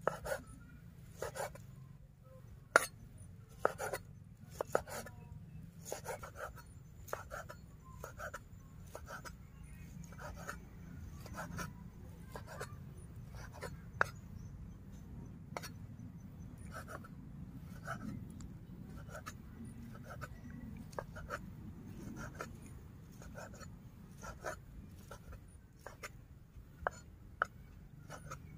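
Knife chopping pork into small cubes on a round wooden chopping block: a steady run of sharp knocks as the blade cuts through and hits the wood, about one or two a second.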